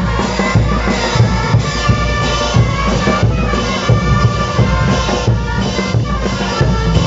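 Bolivian brass band playing kullaguada dance music: trumpets and tubas over a steady bass drum beat.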